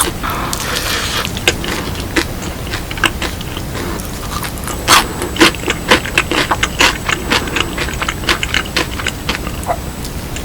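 Close-miked crunching and chewing of seasoned fried chicken with a crispy coating: many sharp crunches, thickest from about halfway through.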